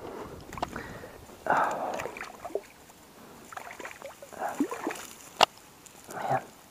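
A hand sloshing and splashing in shallow water at the lake edge while grabbing a fish, in several short bursts, with a sharp click about five seconds in.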